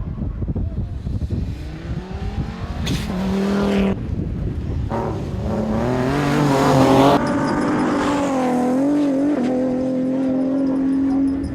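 Rally car engines at high revs, climbing in pitch under hard acceleration and then holding a steady high note. The sound changes abruptly a few times between short shots of different cars.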